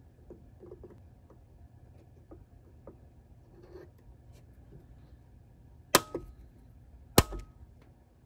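Faint taps and light handling noises of desoldering a capacitor from a circuit board, then two sharp clicks with a brief metallic ring, a little over a second apart, near the end.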